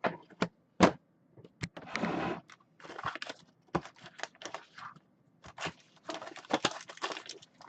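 Objects being handled and moved about on a tabletop: scattered sharp clicks and knocks mixed with short bursts of rustling.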